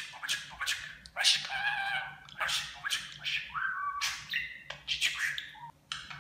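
Talking budgerigar chattering: a quick run of short, squeaky warbles and clicks, broken by brief pauses.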